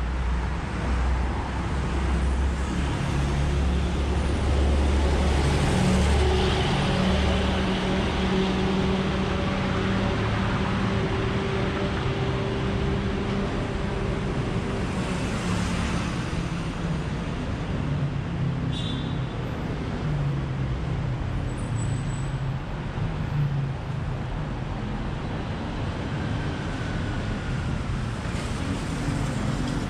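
Road traffic: vehicle engines running and passing steadily, with a louder pass-by about six seconds in and another about fifteen seconds in. A brief high-pitched squeal sounds a little past halfway.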